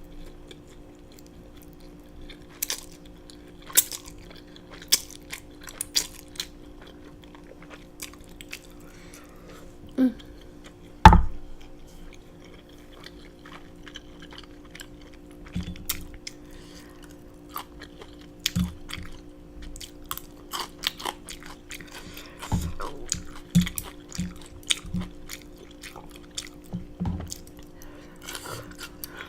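Close-miked chewing and mouth sounds of a person eating black bean noodles and fried dumplings: scattered wet clicks and crunches over a low steady hum. There is one loud thump about eleven seconds in.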